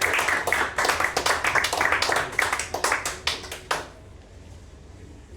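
Small audience clapping, the claps thinning out and stopping about two-thirds of the way through.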